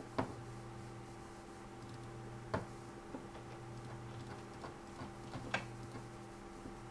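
Computer mouse clicking: three sharp clicks a few seconds apart with a few fainter ticks between them, over a steady low electrical hum.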